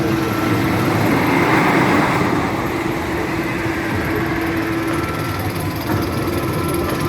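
Wooden roller coaster train clattering and rumbling along its track.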